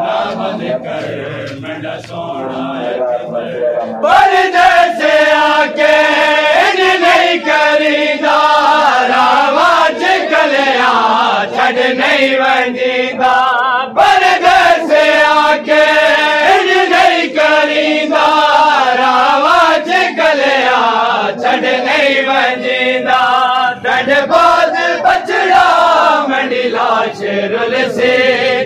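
A group of men chanting a noha, a Shia lament, in unison with a lead voice. Rapid slaps of hands on chests (matam) keep time under the singing. It is quieter for the first few seconds, then full and loud.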